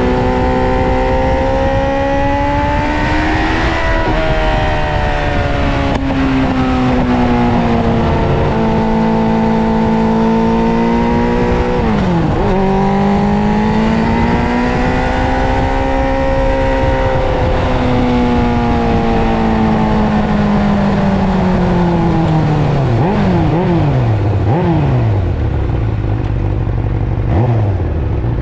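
Suzuki GSX-R600 SRAD's inline-four engine pulling through the gears, its pitch rising and then dropping sharply at each of about three upshifts. From about the middle its note falls as the bike slows, with several quick throttle blips on downshifts near the end before it settles low.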